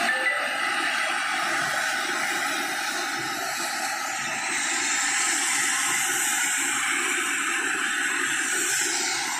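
Steady hiss of CNG gas escaping under pressure from a leaking gas pipeline. A higher part of the hiss swells about halfway through and drops away shortly before the end.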